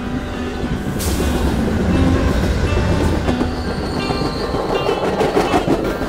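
A train rumbling heavily along the rails. A sudden hiss comes about a second in, a high steady metal squeal of brake friction runs from about four seconds until shortly before the end, and rapid track clatter comes near the end.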